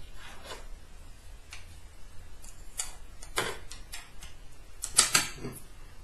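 Clear acrylic Prusa i3 X-axis parts clicking and tapping as they are slotted together by hand and set down on a wooden tabletop: irregular sharp clicks, the loudest about five seconds in.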